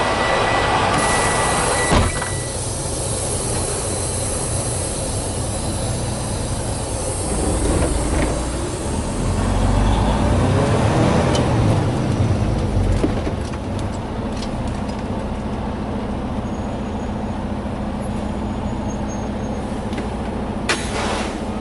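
A semi truck's diesel engine running while the truck moves, with a heavier low rumble about halfway through and a short burst of hiss near the end.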